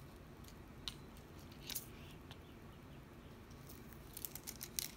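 Quiet handling with a couple of faint ticks, then near the end a rapid crinkling as the clear plastic cover film is peeled back from the diamond painting canvas.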